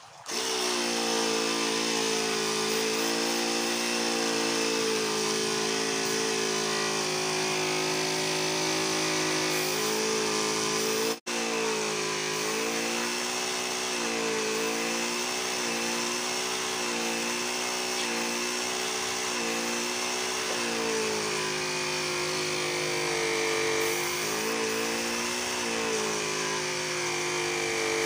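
Mini 12-volt tyre-inflator compressor switched on and running steadily, driving an airbrush, its motor pitch wavering slightly as the airbrush draws air. For spraying varnish its airflow is too weak.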